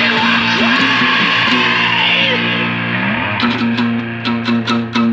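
Acoustic guitar strummed in a rock-and-roll song. A little over three seconds in, the steady strumming breaks into a run of separate sharp strokes, and a last chord rings on near the end.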